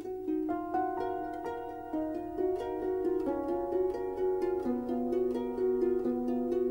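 Instrumental background music: quick repeated notes over longer held notes, with a new phrase coming in about half a second in.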